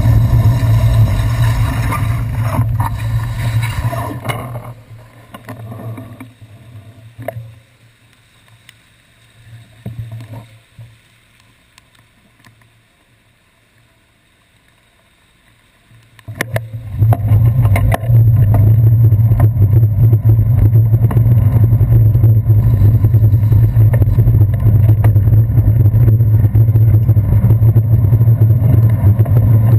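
Steady rumble and wind noise of a bicycle riding over wet city streets, picked up by a handlebar-mounted GoPro Hero 2 in its housing. It drops away about four seconds in to faint, muffled traffic while the bike is stopped, then returns about seventeen seconds in as riding resumes.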